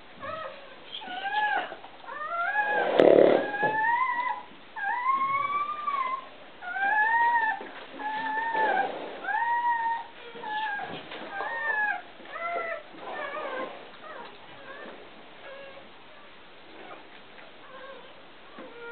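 Newborn puppy crying: a run of short, high squeals, each rising then falling, about one a second, fading to faint ones after about fourteen seconds. A brief louder burst of noise comes about three seconds in.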